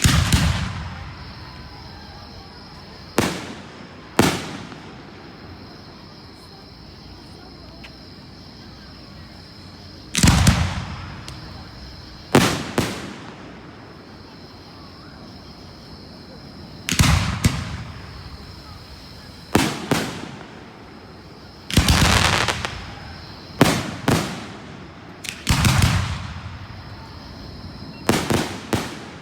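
Fireworks bursting overhead: about fifteen sharp booms, many in quick pairs, with gaps of a few seconds between groups. Each boom is followed by an echo that dies away over a second or so. A faint steady high-pitched drone runs underneath.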